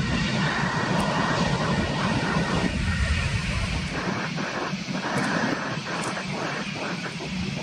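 Boeing 777-223ER's twin Rolls-Royce Trent 892 turbofans at takeoff thrust during the takeoff roll: a loud, steady jet rush that slowly fades as the aircraft moves away, its deep rumble dropping off about halfway through.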